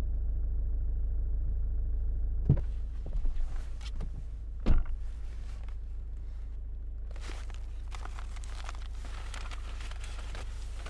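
A car door is opened with a knock about two and a half seconds in and slammed shut a couple of seconds later, over a steady low rumble. A paper bag then rustles and crackles in someone's hands for a few seconds.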